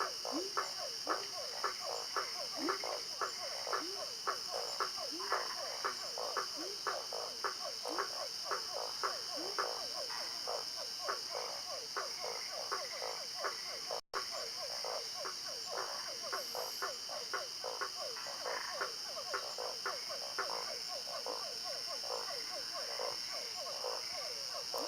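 Frogs croaking in a steady chorus of short, repeated calls, about two or more a second, over a constant high-pitched insect drone. The sound drops out for an instant about fourteen seconds in.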